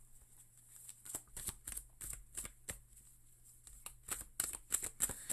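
A deck of tarot cards being shuffled by hand: a run of soft, irregular card clicks and slaps that gets busier in the last second or so.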